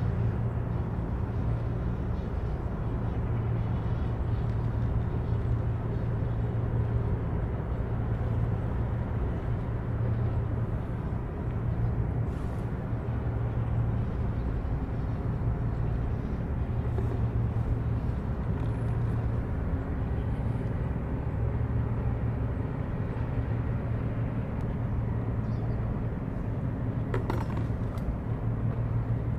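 Diesel engines of a 56 m Coast Guard patrol vessel running as it comes into harbour: a steady low hum that swells and eases slightly every few seconds.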